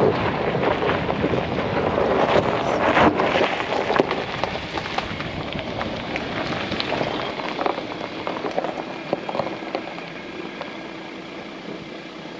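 Vehicle tyres crunching and crackling over a gravel dirt track, with the rumble of the car and caravan rolling along. About halfway through the low rumble drops away and the sound gets quieter.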